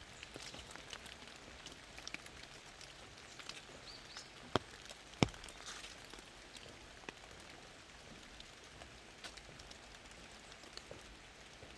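Light rain in a forest: scattered drops ticking on leaves and the ground over a soft steady hiss, with two louder ticks about halfway through.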